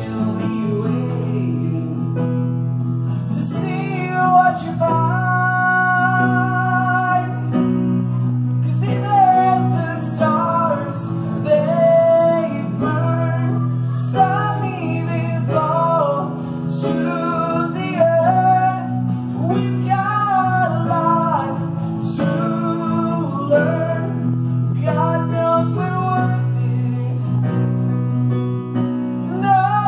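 A live acoustic band playing a song: a man sings a melody into a microphone over strummed acoustic guitar and sustained electric keyboard chords.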